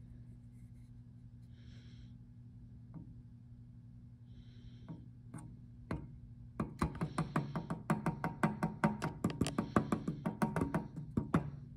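Aerosol can of penetrating oil giving two short sprays, then sputtering and spitting in rapid pops, several a second, for about five seconds: the can is nearly empty. A steady low hum runs underneath.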